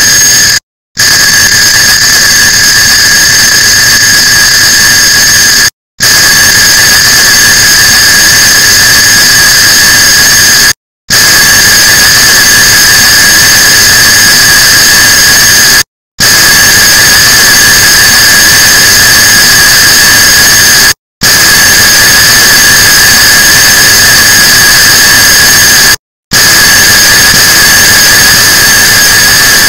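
Many sped-up clock-ticking recordings layered on top of one another, so the ticks merge into one loud, continuous harsh hiss with steady high whining tones. It cuts out for a split second about every five seconds.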